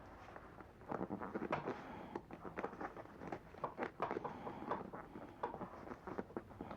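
Hands working a leather seat cover and its fittings: irregular rustling with many small clicks and taps, busier from about a second in.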